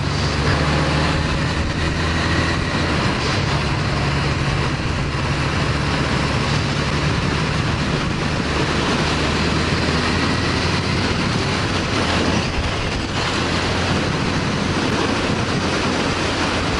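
Honda CB1100EX's air-cooled inline-four running at a steady cruise, under heavy wind and road noise rushing over the microphone.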